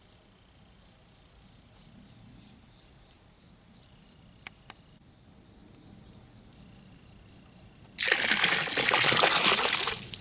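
Water pouring out in a loud rush for about two seconds near the end, over faint insect chirping; two small clicks a few seconds in.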